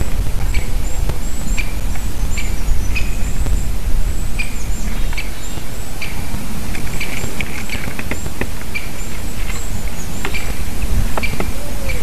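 Small birds giving many short, thin, high calls and chirps in quick succession, some sliding downward, over a steady low rumble.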